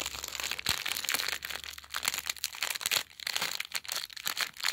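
LEGO Minifigures foil blind bag crinkling as it is squeezed and kneaded between the fingers to feel the parts inside: a run of irregular crackles.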